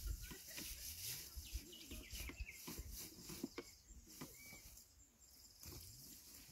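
Faint rustling and crunching of dry, wilted grass hay being trodden down by foot in a wooden baling box, with birds chirping now and then.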